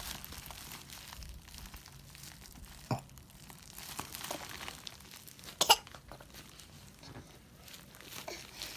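Plastic diaper packaging being handled, crinkling in short scattered rustles, with a sharp crackle about three seconds in and a louder one a little before six seconds.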